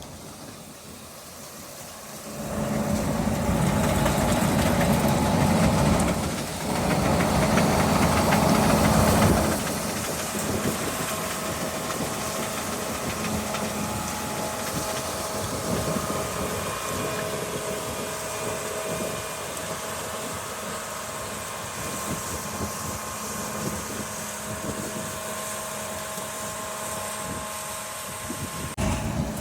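A large farm machine's engine running steadily, with a constant hum. It grows louder about two seconds in, stays loud for several seconds, then settles to a lower, even level.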